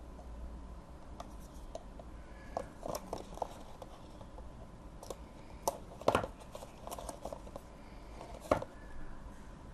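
A cardboard box being handled and opened by hand: scattered clicks, scrapes and rustles, with two sharper knocks about six and eight and a half seconds in.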